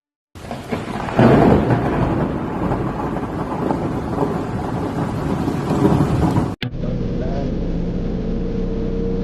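Road and wind noise from a moving car, a loud, rough rumble like wind buffeting the microphone. About two-thirds of the way through it cuts off, and a steadier road rumble with a low engine hum follows.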